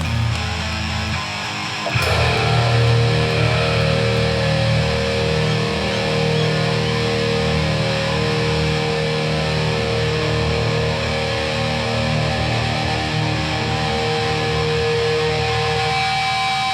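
Hardcore punk band playing live: an instrumental passage with distorted electric guitar, getting louder about two seconds in.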